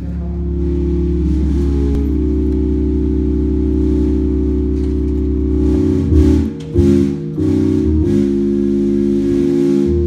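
Church band music: an electronic keyboard holds sustained organ chords over a deep bass, and drum and cymbal hits come in around six seconds in.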